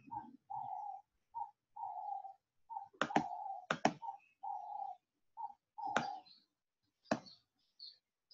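Computer mouse clicks, two quick pairs and then two single clicks, over a repeated mid-pitched tone that comes in alternating short and long notes.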